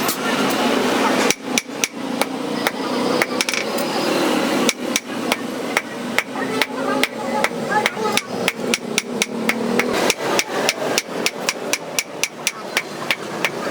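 Hand hammer striking steel on an anvil: rapid, regular blows, about three to four a second, with a steady noise running underneath. The blows come in steadily from about a second in.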